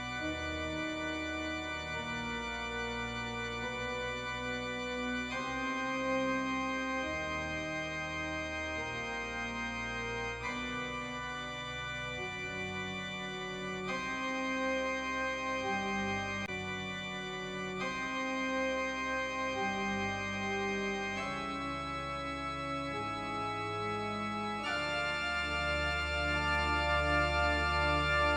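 Organ music: slow, held chords that change every few seconds over a low bass.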